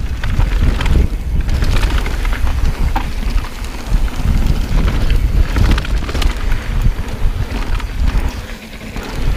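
Mountain bike riding fast down a rough downhill trail: steady tyre rumble with many quick knocks and rattles from the bike over the rough ground, and wind buffeting the camera microphone.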